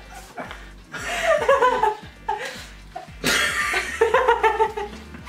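A man and a woman laughing together in two main bursts, the second, about three seconds in, the louder.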